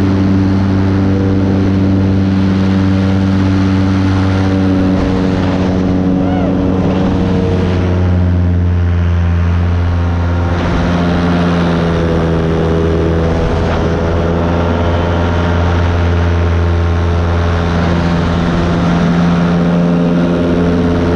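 Paramotor's two-stroke engine and propeller droning steadily in flight, the pitch wavering slightly near the middle.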